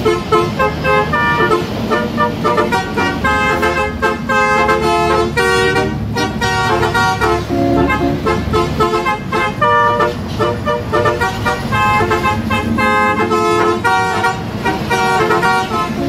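Edited truck air-horn sound effects: a quick run of short horn notes at changing pitches, played like a tune, over the low rumble of passing road traffic.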